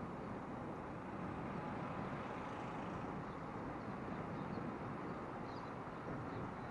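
Steady vehicle and road noise, an even rumble without a clear engine note. Faint short high chirps come in about halfway through.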